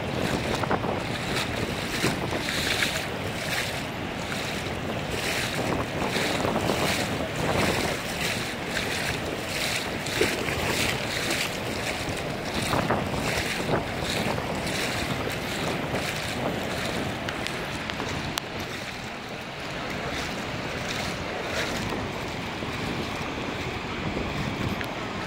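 Shallow river current flowing and splashing, with wind buffeting the microphone.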